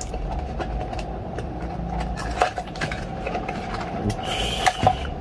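Handling noise as a GoPro Hero 9 is pried out of the fitted cut-out of its hard carrying case: scattered small clicks and knocks, with a short scraping rustle near the end, over a steady low hum.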